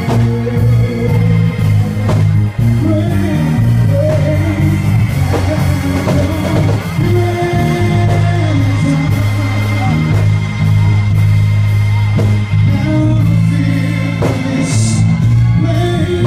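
Gospel worship music: a band with a strong, steady bass line and voices singing over it.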